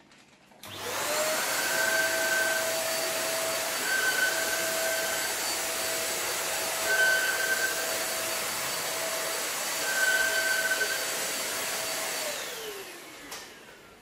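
Deerma DX700 corded stick vacuum cleaner switched on, its motor spinning up within a second to a steady high whine with rushing air while it is pushed over a tile floor. About twelve seconds in it is switched off and winds down with a falling whine.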